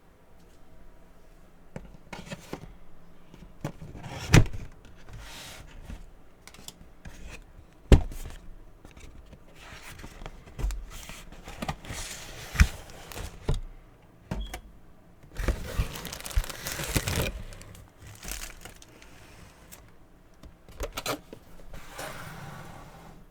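Funko Pop boxes being handled and unpacked: cardboard and plastic packaging crinkling and tearing, with sharp knocks about four and eight seconds in and a longer stretch of rustling about fifteen to seventeen seconds in.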